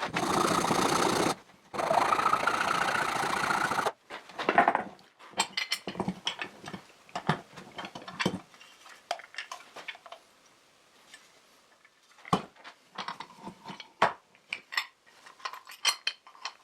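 Power sander running as it grinds the corners of a wood block, in two runs with a short break, stopping about four seconds in. Scattered light knocks and clicks of the wooden block being handled follow.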